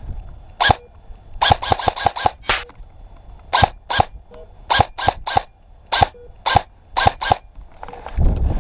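Airsoft gun firing single shots, about fifteen sharp cracks: a quick run of five shots about a second and a half in, then the rest spaced about half a second apart. A loud rushing noise comes up near the end.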